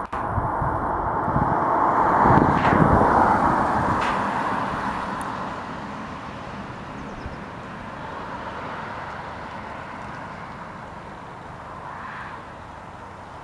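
A road vehicle passing close by, its tyre and engine noise swelling to a peak about two to three seconds in and then fading away, leaving a steady hum of traffic.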